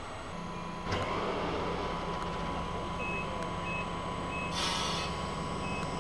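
Electronic beeping: a short high beep repeating about every 0.7 s over a steady high tone and a low hum, after a click about a second in, with a brief hiss near the end.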